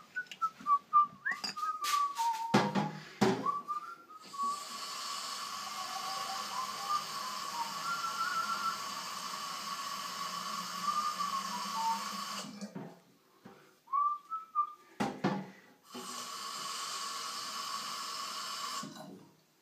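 Kitchen tap water running into the narrow neck of an empty fire extinguisher bottle, a steady rush with a whistling tone, from about 4 s in until about 12 s, and again from about 16 s until just before the end. Before the water comes a few sharp clicks and short whistled notes, with more clicks in the pause.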